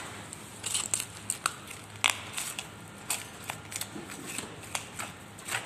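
Boning knife cutting and scraping through a beef shoulder, with irregular sharp clicks and scrapes as the blade works along the meat and bone.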